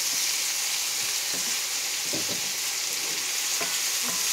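Sliced eggplant, pork and mushrooms sizzling steadily in a hot frying pan, with a wooden spatula stirring them and scraping the pan a few times.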